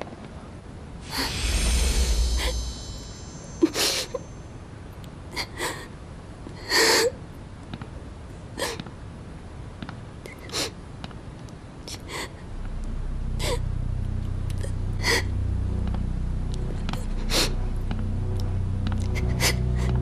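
A woman crying quietly, with short irregular sobs and sniffles. A brief rushing noise comes about a second in, and a low sustained music drone comes in about halfway through.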